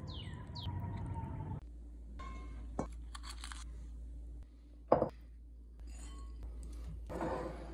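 Food-prep sounds from glass and steel mixing bowls: a few light clinks, the loudest a sharp clink about five seconds in, then a short rustle near the end as shredded cheese is poured into a glass bowl.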